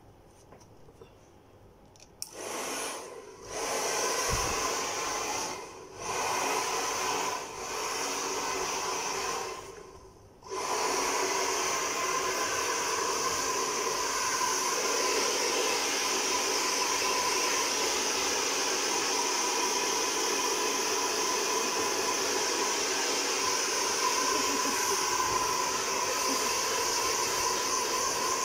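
Handheld hair dryer switched on about two seconds in, blowing on a wet dog's coat. Its air rush cuts out briefly a few times before running steadily for the rest.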